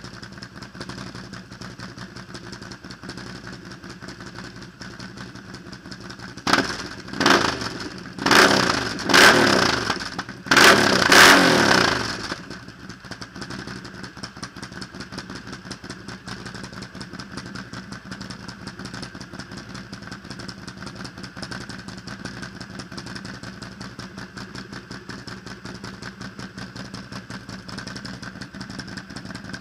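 Can-Am Renegade 800R X's Rotax V-twin idling steadily through an HMF Gorilla Power aftermarket exhaust. A few seconds in, the throttle is blipped five times in quick succession, the later revs higher and longer, before the engine drops back to idle.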